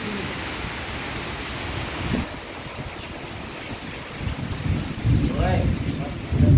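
Heavy rain pouring steadily, with a deep rumble of thunder building in the last couple of seconds.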